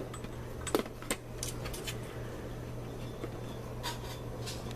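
A few light clicks and taps from handling a garbage disposal's wiring and small parts, over a steady low hum.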